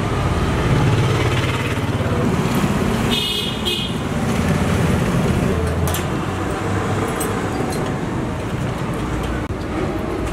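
Steady street traffic noise, with a short double toot of a vehicle horn about three seconds in.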